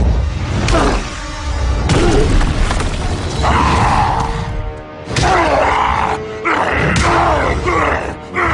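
Dramatic action soundtrack: loud music with repeated booms and thuds and a heavy low rumble.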